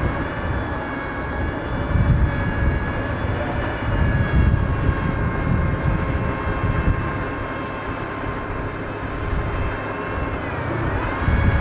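WZT-2 armoured recovery vehicle's V12 diesel engine running as it drives on its tracks, with a rough low rumble and a steady whine that dips in pitch and comes back up near the end.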